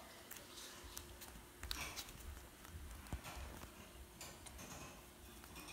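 Faint handling sounds from a paper cutout being picked up and moved on a wooden floor: scattered light taps and rustles over a low rumble.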